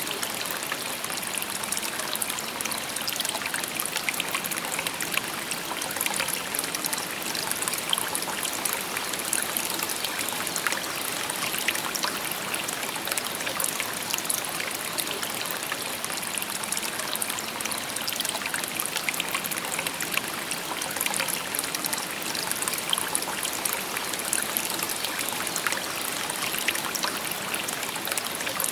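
Shallow river or stream flowing steadily over stones: a continuous babble of trickling water with many small splashes and droplets.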